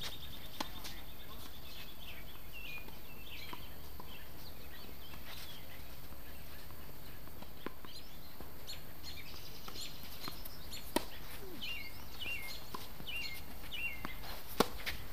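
Birds chirping outdoors, with a run of four quick falling chirps in the last few seconds. Two sharp racket hits on a tennis ball ring out, one about two-thirds of the way in and one just before the end.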